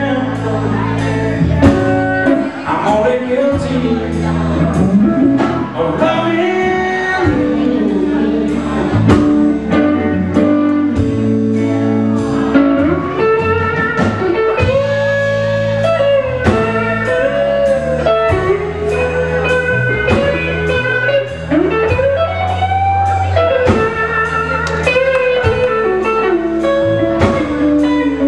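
Live blues band playing an instrumental passage: lead electric guitar bending notes over bass and a steady drum beat.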